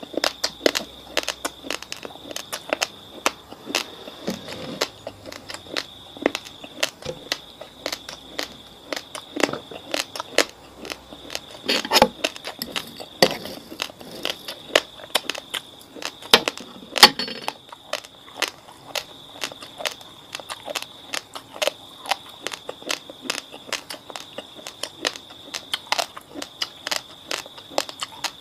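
Raw, fridge-chilled basmati rice being chewed close to the microphone: a dense, uneven run of sharp crunches and cracks as the hard grains break, with a few louder cracks about midway. A faint steady high whine sits behind them.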